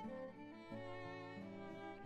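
Quiet background music: a slow melody of held notes over a lower line of sustained notes.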